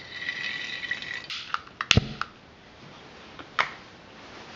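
Denatured alcohol being pushed from a syringe through its needle into a soda-can alcohol stove, with a thin steady high-pitched tone until about a second in. Then come several sharp clicks and knocks, the loudest about two seconds in and another about three and a half seconds in.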